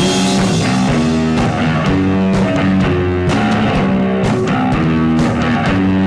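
Rock song's instrumental passage: guitar chords over a steady drum-kit beat.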